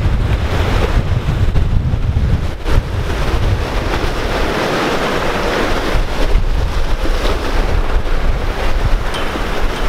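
Wind buffeting the microphone with a low rumble, over the steady rush and splash of waves along the hull of a sailboat moving fast under sail.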